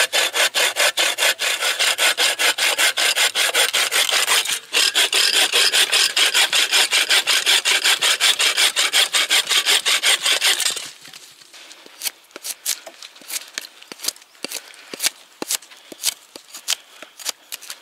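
Hand bow saw cutting through a dry dead branch in quick, even back-and-forth strokes, about three to four a second, with a brief pause a little over four seconds in. The sawing stops about eleven seconds in, followed by a scatter of light sharp knocks.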